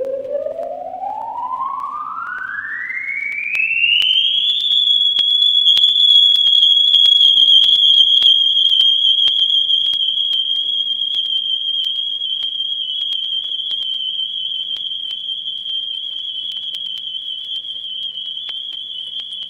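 Electronic sci-fi sound effect from a vinyl effects record: a pure whistling tone sweeps smoothly upward in pitch for about four and a half seconds, then holds a steady high note with a slight waver. Faint record crackle clicks throughout.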